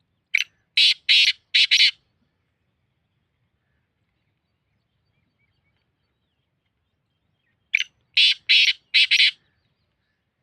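Francolin (titar) calling: two loud phrases, one at the start and one about eight seconds in. Each is a short note followed by three longer, harsh notes in quick succession.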